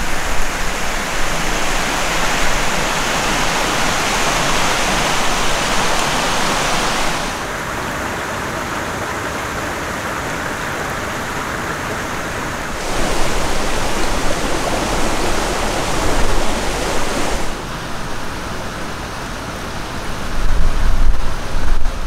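Steady outdoor rushing noise of wind and water at a loch shore, changing level and tone sharply at three points as the shots change. Near the end a low rumble of wind buffeting the microphone grows.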